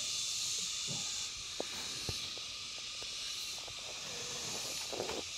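Wood cooking fire crackling with a scatter of sharp pops, over a steady high hiss that eases a little about a second in.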